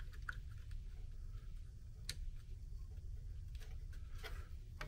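A few faint clicks and handling noises as the plastic fan shroud is fitted back onto a Bambu Lab P1P 3D printer's toolhead, the clearest click about two seconds in, over a low steady hum.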